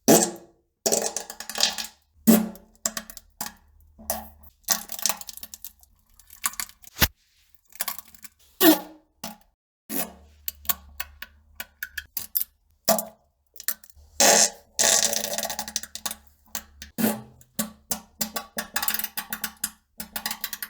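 A rapid, irregular string of short fart sounds of varying length, some brief pops and some longer drawn-out ones, with hardly a pause between them.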